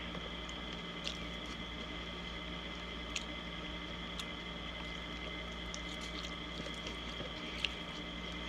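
A person eating a Subway salad, with soft wet chewing and a few sharp small clicks, over a steady background hum.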